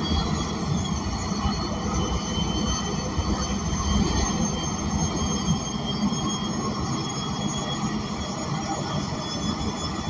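Cabin noise inside an ENC Axess natural-gas transit bus: its Cummins Westport L9N inline-six and Voith D864.6 automatic transmission running with steady low rumble, plus faint steady high whining tones, with the HVAC not running.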